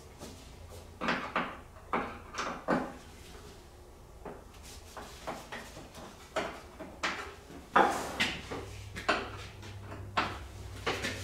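Phillips screwdriver and gloved hands working the plastic gas-tank cover off a Kawasaki Prairie 400 ATV: a series of irregular clicks, knocks and plastic rattles, the loudest a sharp knock about eight seconds in.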